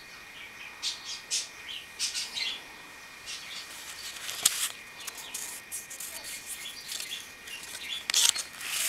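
Paper rustling and crinkling in short scattered bursts as a pleated paper cupcake decoration is handled, with a sharp click about four and a half seconds in.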